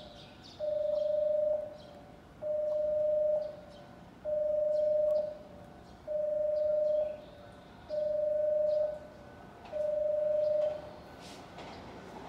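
Station platform warning tone for an approaching non-stop train: a steady single-pitched beep about a second long, repeated six times at intervals of a little under two seconds.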